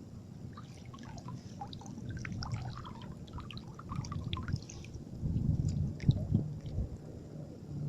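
Water dripping and trickling, many small drops plinking irregularly over the first few seconds, then a louder low rumble with a steady hum takes over for the rest.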